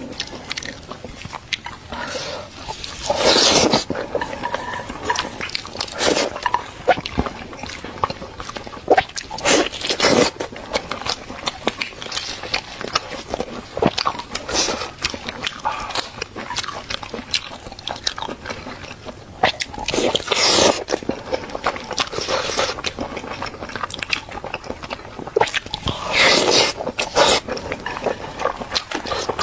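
Close-miked chewing and biting of a chicken drumstick, many irregular wet clicks and short crunchy bites.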